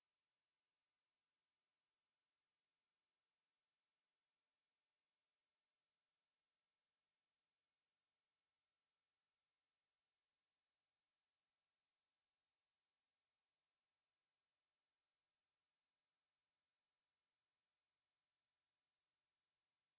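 A steady 5976 Hz sine-wave test tone: one pure, high-pitched whistle held at constant pitch and level.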